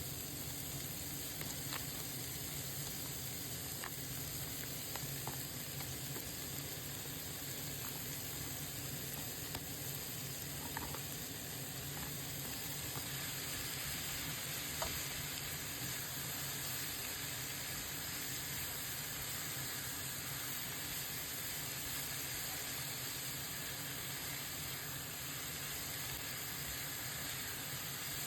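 Beef mince and vegetables, including frozen mixed vegetables, sizzling steadily in a frying pan, with a few light clicks of a utensil in the first half.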